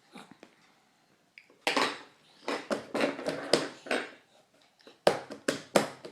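Cutlery and dishes clattering at a meal: a run of quick clinks and knocks about two seconds in, then another short cluster about five seconds in.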